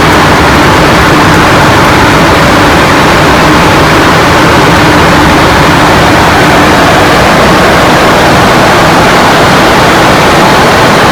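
Airliner cockpit noise: a loud, steady rush of air and engine sound with a faint low hum running under it.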